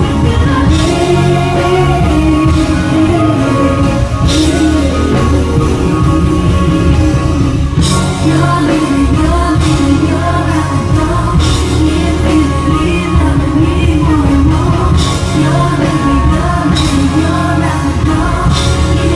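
A female singer's voice on live concert sound, backed by a band with a steady bass line and recurring high accents, her melody wavering and gliding between notes.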